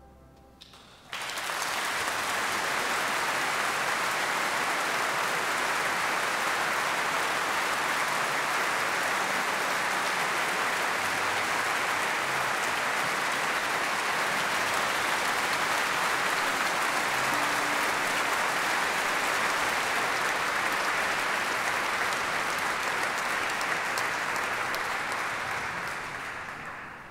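Concert audience applauding: dense, steady clapping that breaks out about a second in, just as the last note of the music dies away, and fades out near the end.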